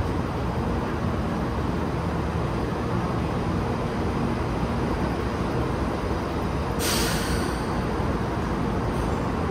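Taiwan High Speed Rail 700T train moving in the station, a steady low rumble, with a short sharp hiss of air about seven seconds in and a fainter one soon after.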